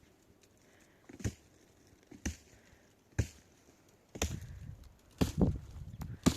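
A series of sharp knocks or chops, about one a second, with a low rumbling noise joining in about four seconds in.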